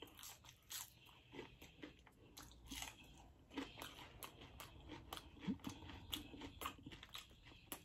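Close-miked chewing of crisp fried food, starting on a French fry: faint, irregular crunches and crackles as the food is bitten and chewed.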